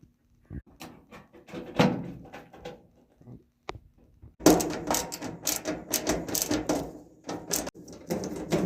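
Scattered clicks and knocks of a dryer's back panel and parts being handled during reassembly, turning into a dense run of clattering and rattling from about four and a half seconds in.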